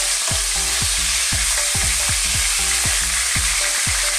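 Cubes of pork belly frying in hot oil, a steady sizzle, with a wooden spatula stirring and scraping them around the pan.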